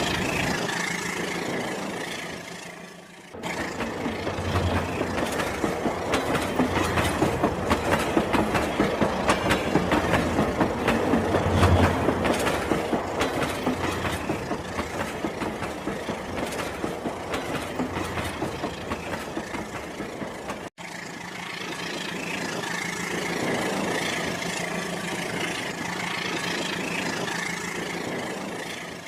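Rail King battery-powered toy train running on its track, a continuous mechanical running noise with a fast, even clatter. The sound drops out sharply twice, about three seconds in and again about 21 seconds in.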